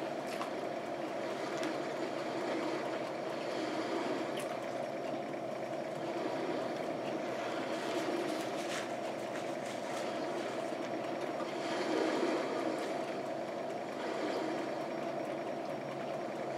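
A steady, even background hum, with a few faint clicks of a fork on a plate and chewing as someone eats.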